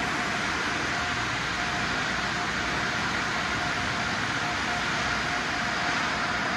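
Car wash tunnel air dryer blowers running: a steady rush of blown air with a faint constant whine.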